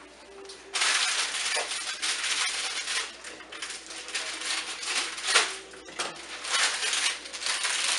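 Plastic crinkling and rustling with small clicks and clatters, from handling a bunch of plastic-sleeved ice pops. It starts about a second in, with a sharper clack a little past halfway.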